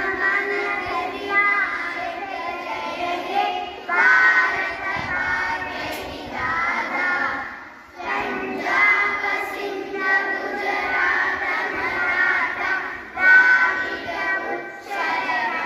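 Young children singing together in unison, in sung phrases a few seconds long with brief breaks between them.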